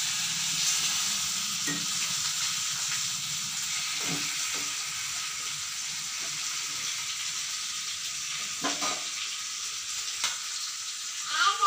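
Masala-coated fish steaks shallow-frying in oil in a pan, a steady sizzle, with a few light knocks and scrapes of a metal slotted spoon as the pieces are turned partway through frying.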